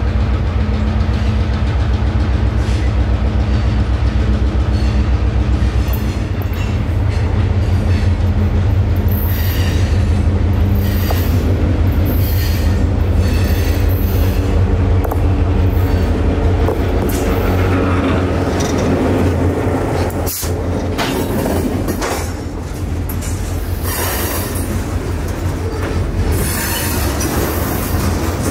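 An EMD GP9 locomotive's 16-cylinder two-stroke diesel runs loud and steady as it comes up and passes close by. Freight cars then roll past, with wheel squeal coming and going and clicking over the rail joints.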